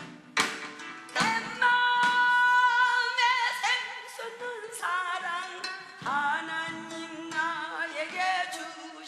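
Background music with a woman singing long, wavering held notes over instrumental accompaniment.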